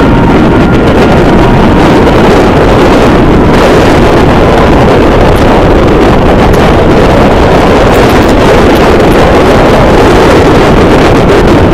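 Steady rush of wind over the microphone mixed with a motorcycle engine running at speed, loud and unbroken.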